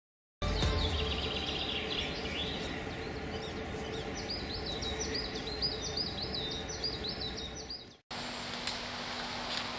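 Tropical forest ambience with birdsong: a bird repeats high, quick chirping notes in fast runs over a steady low background rush. The ambience cuts in just after the start, fades out about eight seconds in, and gives way to a different, quieter background with a few faint ticks.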